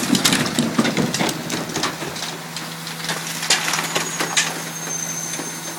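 Loadmaster rear-loading garbage truck idling with a steady hum, under scattered knocks and clatters of debris and trash being handled, busiest in the first second or so.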